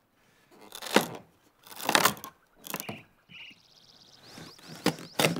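Axe blows chopping into a fir log: about five sharp strikes with splitting, cracking wood. The blows knock out chainsaw-cut cubes to hollow out a water trough.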